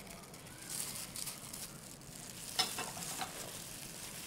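Flour pouring onto shredded pumpkin in a metal bowl, then a plastic-gloved hand tossing the mixture: a soft, crackly rustling, with a brief sharp tick a little past halfway.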